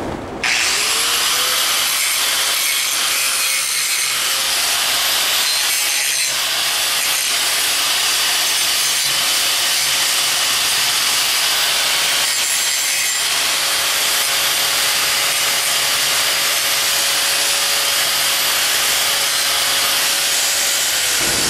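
A handheld electric grinder deburring the freshly cut end of a PTO shaft tube clamped in a vise: a steady whine over a loud grinding hiss. It spins up about half a second in and winds down just before the end.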